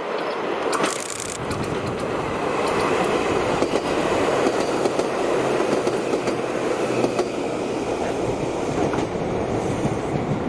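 Chichibu Railway 7500 series electric train passing close by: a steady rumble of steel wheels on the rails with sharp clicks as the wheels cross rail joints, a little louder in the middle.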